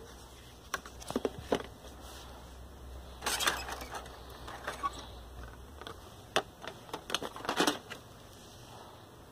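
Scattered light clicks and rattles, bunched into a few short clusters, over a faint low hum that stops about six seconds in.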